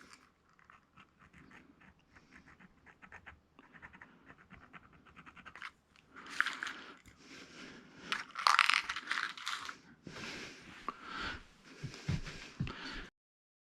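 Screws being taken out of a flat-screen TV's back panel: a screwdriver clicking rapidly and faintly for the first few seconds, then louder scraping and rustling of metal parts and paper. The sound cuts off suddenly near the end.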